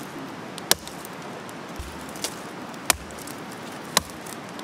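Hatchet striking wood: three sharp chops spread over a few seconds, with a fainter knock between them.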